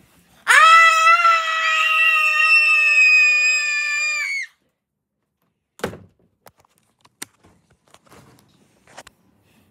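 A child's voice holding one long, loud scream on a steady high note for about four seconds, stopping abruptly. About a second and a half later comes a single thump, then a few faint clicks.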